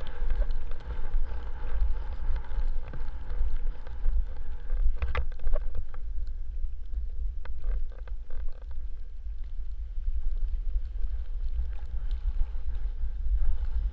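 Wind buffeting the microphone: a steady low rumble that rises and falls, with a few faint clicks about five seconds in.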